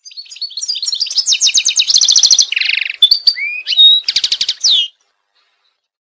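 White canary singing: a fast run of trills of quickly repeated high notes, broken by whistled rising and falling glides. The song cuts off sharply about five seconds in.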